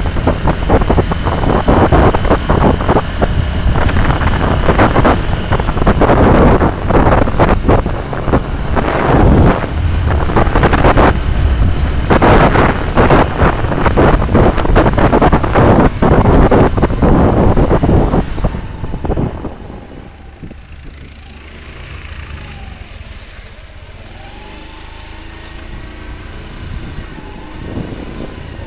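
Air-cooled single-cylinder engine of a Yamaha YBR 125 motorcycle running at road speed under heavy wind buffeting on the bike-mounted camera's microphone. About two-thirds of the way through it drops to a much quieter, slow run with faint rising and falling engine pitch.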